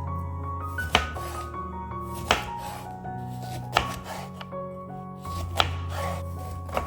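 A knife cutting food on a cutting board, five single strokes spaced about a second and a half apart. Background music plays under them.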